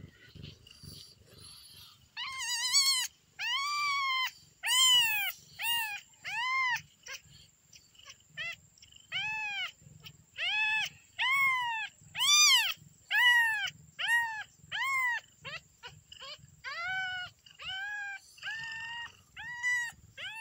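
A very young kitten meowing over and over in high-pitched cries, more than twenty of them, each rising then falling in pitch. The cries start about two seconds in and come every half second to a second.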